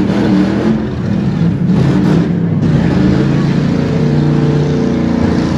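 V8 engines of demolition-derby cars running and revving unevenly, the pitch shifting up and down.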